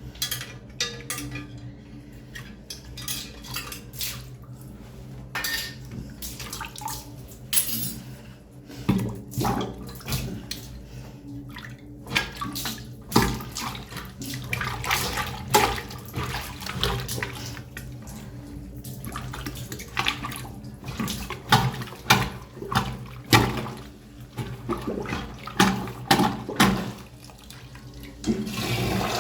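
Water splashing and sloshing in a blocked urinal, with irregular knocks and clinks as the drain is worked on. A steady rush of water starts near the end.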